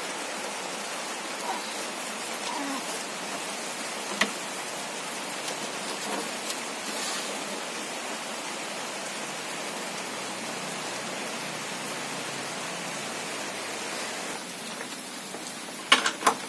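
Steady rain falling, an even hiss. It turns quieter near the end, and a few sharp clicks come at the very end.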